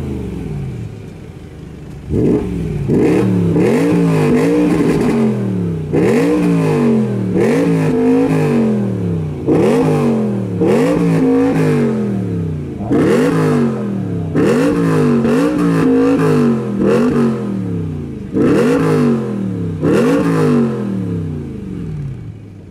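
A modified BMW M3's 4.0-litre V8 revved hard on the spot through its aftermarket exhaust, a long run of short throttle blips, each rising quickly and falling back, after a brief lull at the start. It settles back toward idle near the end.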